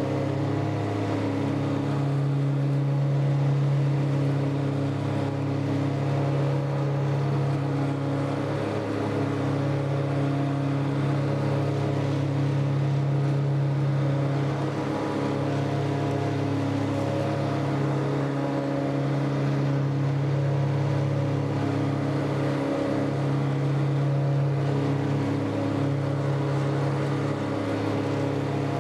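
Tractor engine running steadily under load while it drives and pulls a 12-foot Woods Turf Batwing rotary mower through grass. Its note shifts slightly now and then.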